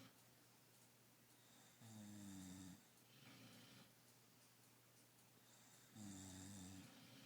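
Faint, slow, regular snoring: two long snores about four seconds apart, each followed by a softer breathy sound.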